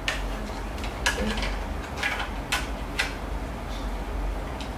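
Light plastic clicks and taps at irregular intervals, about one or two a second, as a magnetic LEGO maze is played: a magnet-steered piece knocking against the LEGO brick walls while the board is handled.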